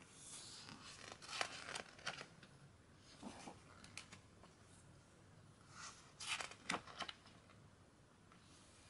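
Faint rustling and swishing of thick glossy photobook pages as hands turn them and smooth them flat, with a few light paper clicks. It comes in two bouts, over the first couple of seconds and again about six seconds in.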